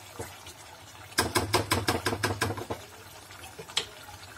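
A spoon stirring chicken curry in a cooking pot, knocking and scraping against the pot about ten times in quick succession from about a second in, then once more near the end, over a low steady hum.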